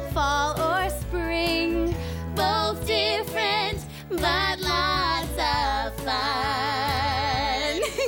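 Children's pop song: sung vocals over a band backing, ending in a long held note with vibrato in the last two seconds.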